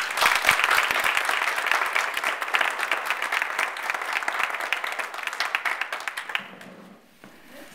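Audience applauding: many hands clapping in a dense patter that starts at once and dies away about six seconds in.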